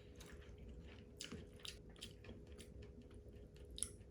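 Someone chewing food with the mouth close to the microphone, soft wet clicks and smacks every so often, the sharpest one near the end, over a faint steady hum.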